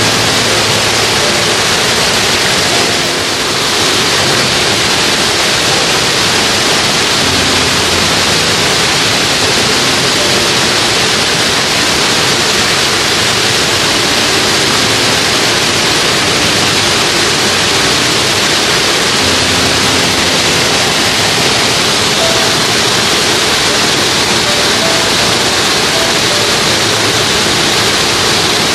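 Steady, loud rush of fast-flowing mountain-stream water.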